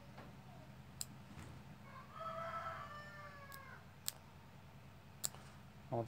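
A single drawn-out call, rising then falling in pitch and lasting about a second and a half, over a low steady hum, with a few light clicks scattered through.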